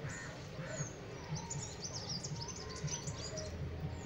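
A flock of house sparrows chirping, with many short, high chirps overlapping, thickest in the middle stretch. Underneath runs a low pulsing hum, about two or three beats a second.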